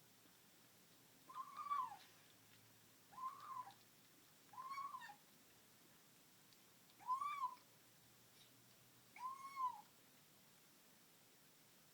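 Domestic cat making short mewing 'om-nom' sounds while it eats: five brief calls, each rising and then falling in pitch, spaced irregularly a second or two apart.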